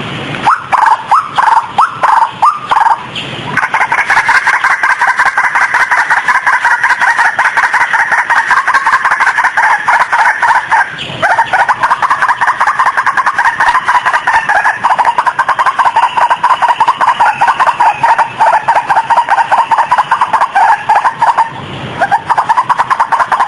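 White-breasted waterhen (ruak-ruak) calling, played as a bird-lure recording. A few spaced notes lead into a fast, unbroken run of repeated calls, which breaks off briefly about eleven seconds in and again near the end, then starts again.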